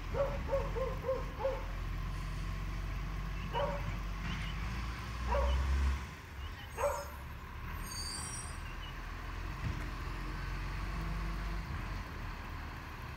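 A dog barking, first five quick barks, then a few single barks about a second apart, over the steady low running of a garbage truck's engine, which briefly grows louder about halfway.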